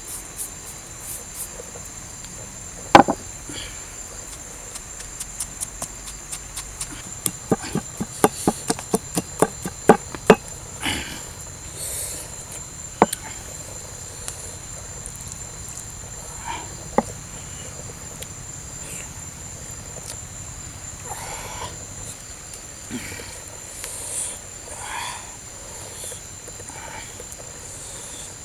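Steady high-pitched insect drone, with a run of sharp knocks about three a second in the middle: a pestle pounding chillies in a stone mortar. A few single sharp clicks stand out elsewhere, the loudest near the start.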